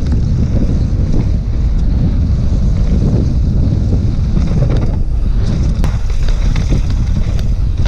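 Wind buffeting a mountain bike's onboard camera microphone during a fast descent on a dirt trail: a loud, steady low rumble, with scattered clicks and rattles in the second half.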